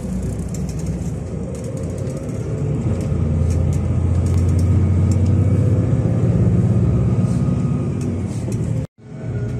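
Car interior noise: a steady low engine and road rumble as the car drives, growing louder through the middle. It breaks off abruptly for an instant near the end, then resumes.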